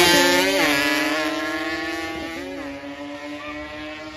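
A drag-racing vehicle's engine at high revs, pulling away and fading, with quick upshifts about half a second and about two and a half seconds in.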